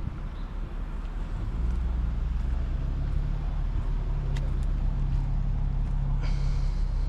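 Car engine running with road noise while driving, growing louder about a second and a half in and then holding a steady hum. A brief hiss about six seconds in.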